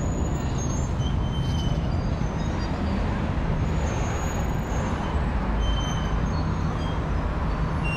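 Steady street traffic noise: motor vehicles running past with a low engine hum.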